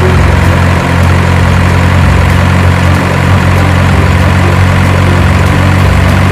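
A heavy engine idling steadily with a deep, even rumble.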